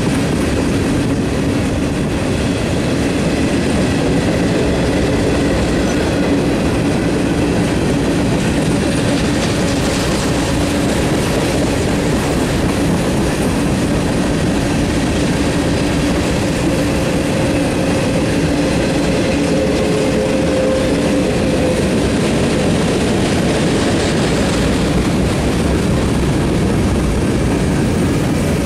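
Freight cars of a long train, mostly covered hoppers, rolling steadily past: a continuous loud rumble and rattle of steel wheels on rail, with faint clickety-clack over the rail joints and a low steady tone that fades about two-thirds of the way through.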